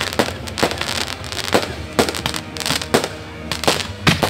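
Fireworks going off overhead: an irregular string of sharp bangs and crackles, roughly two or three a second.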